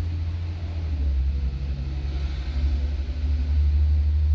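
A motor running with a steady low rumble and a faint steady hum above it.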